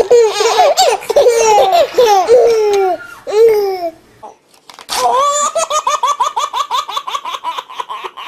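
Baby laughing in high-pitched bouts, then after a short break a fast, even run of laughs at about five or six a second.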